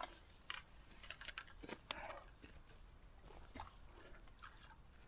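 Faint, scattered clicks and rustles of fishing tackle being handled: rod and landing-net pole. The clicks are busiest in the first two seconds and then thin out.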